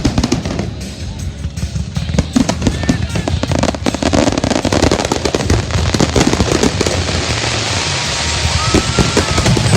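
Fireworks going off in a rapid barrage: many bangs and crackles, densest in the second half.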